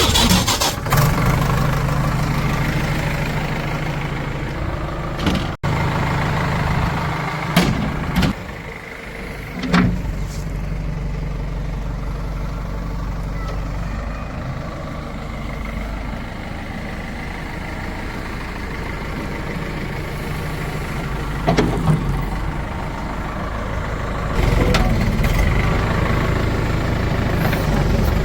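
Heavy diesel engine running steadily, louder at the start and again near the end, with a few sharp knocks a third of the way in and again past the two-thirds point.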